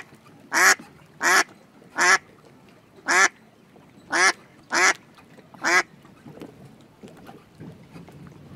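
A duck quacking: about eight short, separate quacks at uneven spacing, stopping about six seconds in.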